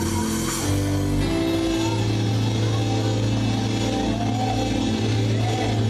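Loud live gospel praise music from a church band, with long held bass notes and chords that change about a second in.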